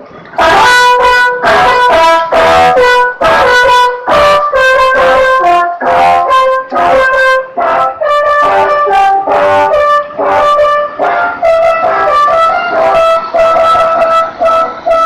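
Telolet bus horn, a multi-tone air horn on an Indonesian bus, playing a melody: short loud blasts about two a second, then longer notes run together into a tune in the second half.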